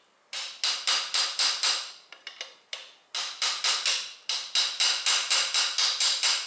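Quick hammer blows on the end of a long screwdriver wedged between the driveshaft's inner joint and the gearbox, about four sharp strikes a second with a short lull about two seconds in. The blows are driving the right driveshaft out of the transaxle, which is not yet free.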